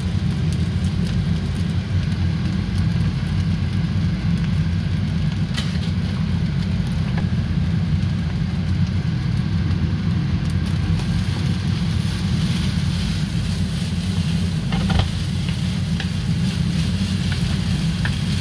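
Fried rice sizzling in a nonstick wok while a wooden spatula stirs and scrapes it, with a few light scrapes, over a steady low hum.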